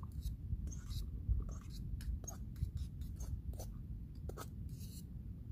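A spoon scraping and knocking against the inside of a stainless steel pot as food is stirred, in short irregular strokes, over a steady low rumble.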